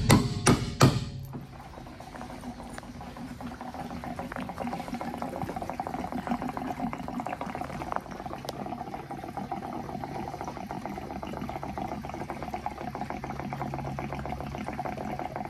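Gasoline pouring steadily from a plastic gas can into the van's fuel filler. A few sharp knocks come in the first second or so, before the pour.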